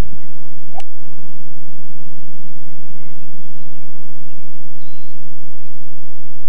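A single sharp click of a golf iron striking the ball, about a second in, over a steady low hum. A bird gives a brief high chirp near the end.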